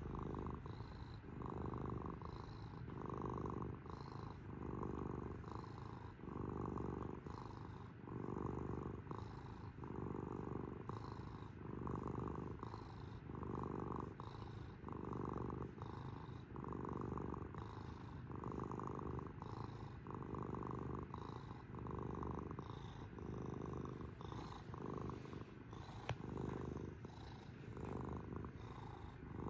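Domestic cat purring steadily, the purr swelling and easing in an even rhythm about once a second with each breath in and out.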